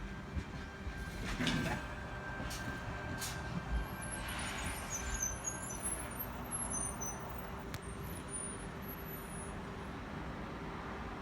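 Electric train at the station, with a steady hum and short air-brake hisses about a second and a half in and again around four and a half seconds.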